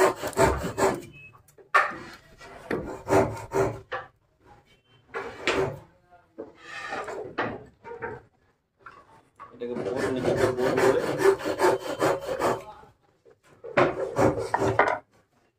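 Wood being rubbed down by hand in several bursts of rough strokes with short pauses between them, the longest lasting about three seconds.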